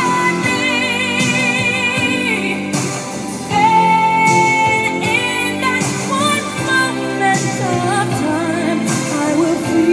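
A pop song playing: a singer holding long notes with vibrato over a backing band.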